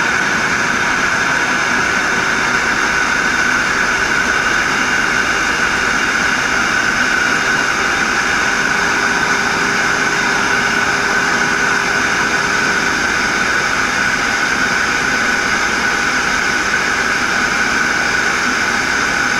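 Loud, steady whir of a Black+Decker countertop blender running continuously at one speed, blending pineapple peel, ginger and green pepper in water.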